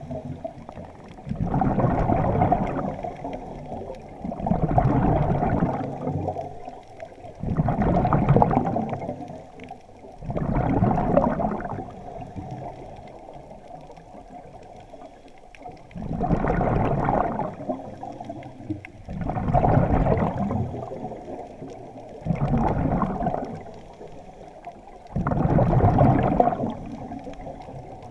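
Scuba diver breathing through a regulator underwater: a rush of exhaled bubbles about every three seconds, eight times, with quieter inhalations between and a longer pause midway.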